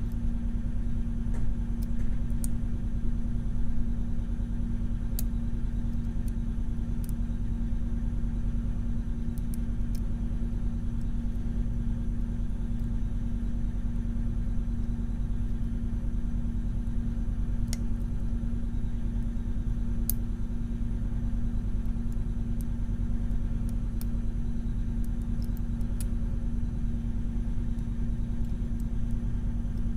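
A steady low hum or rumble at a constant level, with faint, scattered small clicks of a lock pick working the pins of a Mul-T-Lock Junior pin-in-pin lock.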